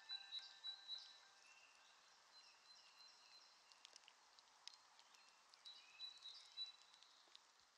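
Near silence with faint high chirping and scattered small clicks, fading away toward the end.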